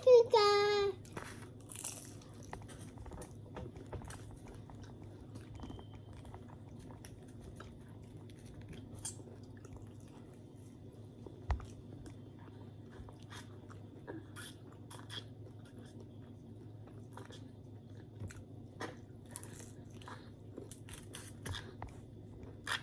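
Close-up eating sounds: chewing and biting into pizza and French fries, with scattered small clicks. A short high voice sounds at the very start, and a single sharper knock comes about halfway through.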